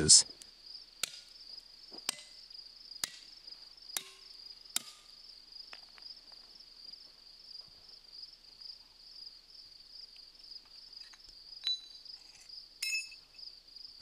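A two-pound hammer strikes steel feathers and wedges set in a granite block: five ringing metal-on-metal strikes about a second apart in the first five seconds. Insects chirr steadily at a high pitch throughout, and a couple of light metallic clinks come near the end.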